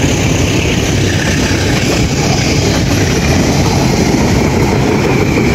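Passenger train rolling past close by: a loud, steady rumble of wheels on the rails.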